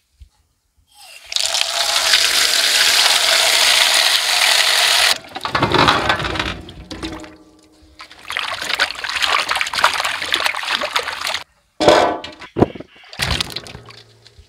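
A few seconds of steady rushing water, then hands splashing and swishing potatoes in a steel bowl of water to wash them. After a brief break near the end, tomatoes are swished and splashed in water the same way.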